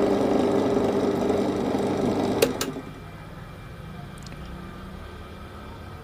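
Twin-tub washing machine wash motor running, belt-driving the pulsator pulley in its reverse direction. About two and a half seconds in there are two sharp clicks, and the running noise drops to a much quieter low hum.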